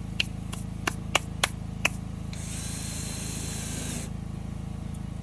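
A quick series of six sharp clicks or ticks in the first two seconds, then a hiss lasting about a second and a half, over a steady low mechanical hum.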